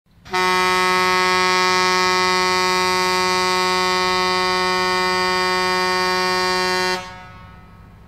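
Air horn sounding one long, steady blast of about six and a half seconds, which cuts off sharply and leaves a short echo dying away.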